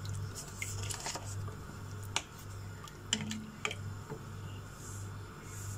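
Wooden spatula stirring a pot of stock with potato pieces, knocking against the pot in scattered sharp clicks, over a low hum that pulses about every 0.7 seconds.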